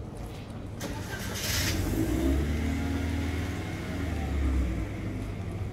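Car engine running close by, a low steady hum for about three seconds that drops away near the end, after a short hiss about a second and a half in.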